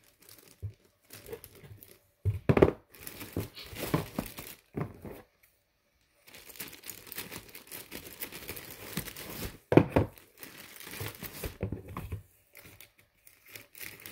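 Clear plastic packaging bag crinkling and rustling as it is handled, in irregular bursts, with two louder grabs, one about two and a half seconds in and one near ten seconds in.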